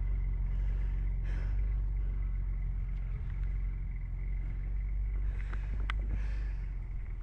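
Off-road truck engine running with a steady low rumble, with a few faint clicks about six seconds in.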